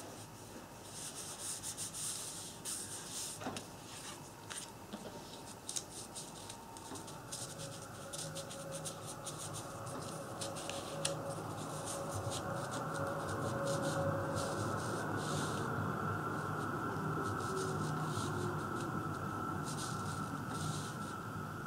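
Hands rubbing and pressing down paper card stock, with paper sliding and rustling in short scratchy strokes. From about eight seconds in, a faint steady hum-like tone runs underneath.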